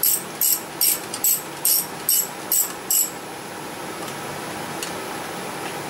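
Socket ratchet clicking in quick back-and-forth strokes, two or three a second, as intake manifold bolts are snugged down. The ratcheting stops about three seconds in.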